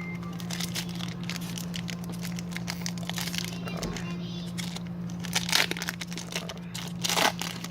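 Trading-card pack wrapper crinkling and tearing as a pack is opened and the cards are handled, with louder crinkles about five and a half and seven seconds in, over a steady low hum.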